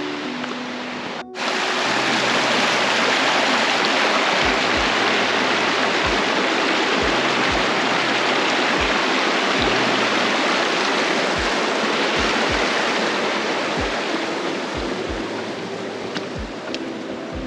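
Mountain stream rushing over rocks: a loud, steady rush of water that starts suddenly about a second in and fades near the end. Background music with low bass notes plays underneath.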